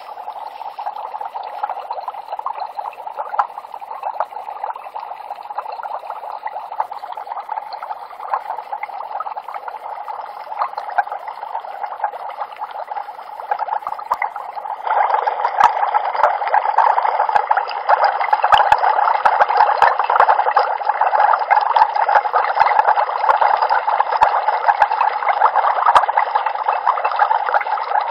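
Liquid bubbling and gurgling with many small pops, as in a science-lab sound effect. It steps up louder about halfway through and holds there.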